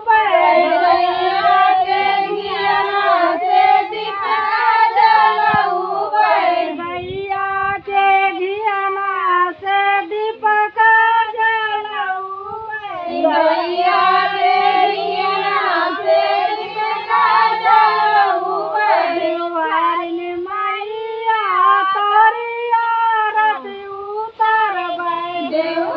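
A high female voice singing a melody in long, held phrases, with a short break about twelve seconds in.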